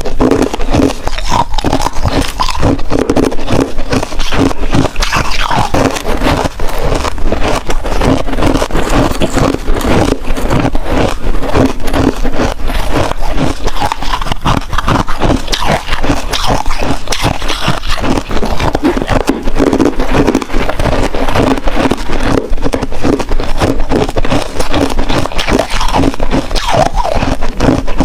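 Hard ice being bitten and chewed close to the microphone: a dense, continuous run of loud crunches.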